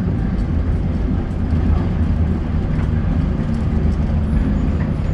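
Diesel engine of an Alexander Dennis bus with a Plaxton Pointer 2 body running steadily, with a faint high turbo whistle appearing near the end.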